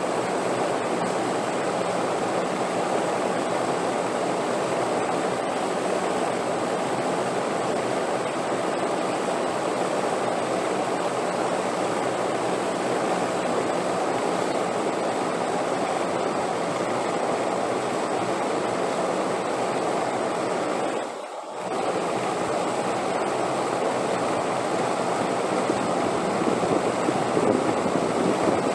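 Steady wind, a continuous rushing hiss with no gusts standing out, that briefly drops away and returns about three-quarters of the way through.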